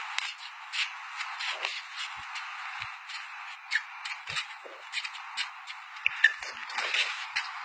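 Boxing sparring: gloves smacking and sneakers scuffing on concrete, a string of sharp, irregular slaps and scrapes over a steady hiss, the loudest slap about six seconds in.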